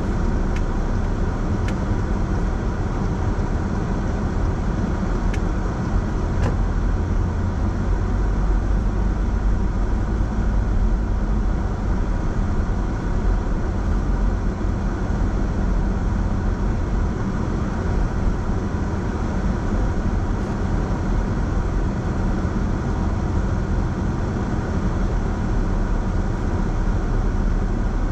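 A car driving on the road: a steady low rumble of tyres and engine that holds an even level throughout, with a few light clicks in the first several seconds.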